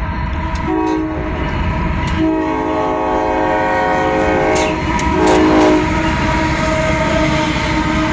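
Freight locomotive's multi-note air horn sounding a horn salute: a chord of steady notes that swells louder in three blasts, a short one about a second in, a long one, and another short one near six seconds. Under it runs the rumble of the passing freight train.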